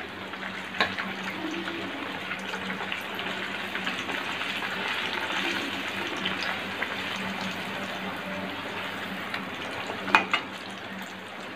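A puri made from nut-based keto flour sizzling as it deep-fries in a kadhai of hot oil, a steady hiss that swells a little midway. A metal slotted spoon clinks against the pan about a second in and again near the end.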